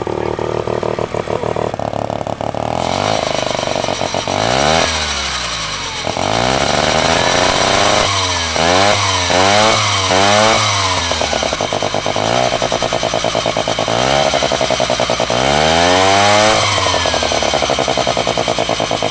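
A minibike's small engine running on a stand, its throttle blipped so the revs climb and fall back several times: a quick run of about four revs in the middle and one longer rev near the end, with steady running between.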